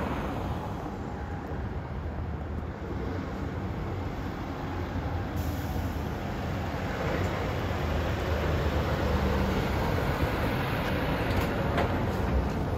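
Heavy-haul tractor unit and low-loader trailer carrying a railway car on the road: diesel engine rumble and tyre noise, growing steadily louder as it approaches.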